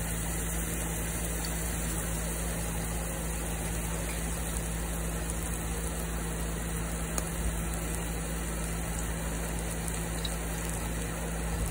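Rib-eye steak sizzling steadily in hot oil in an electric skillet set to 400°F, searing just after being laid in the pan.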